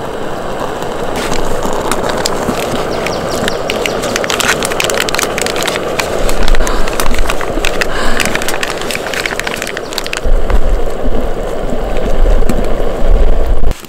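A portable gas canister burner hisses steadily under a pot of simmering ramen, with scattered clicks and crackles. About six seconds in, and again from about ten seconds, gusts of wind buffet the microphone with a low rumble.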